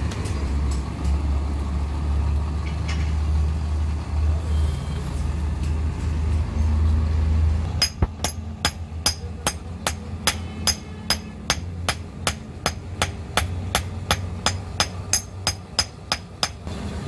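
Blacksmith's hand hammer striking metal on an anvil block: a quick, even run of ringing blows, about three a second, starting about halfway through and stopping just before the end. Before the hammering there is a low, steady rumble.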